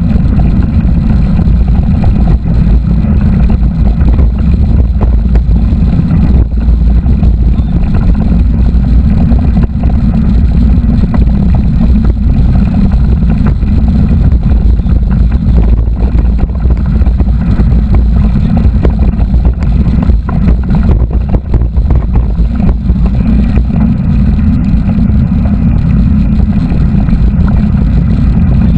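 Steady low rumble of wind buffeting a mountain-biker's camera microphone, mixed with tyre and trail rumble from the moving bike.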